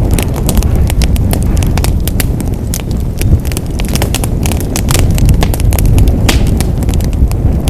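Wood fire burning in a fireplace: dense crackling and popping, many sharp snaps a second, over a steady low rumble of the flames.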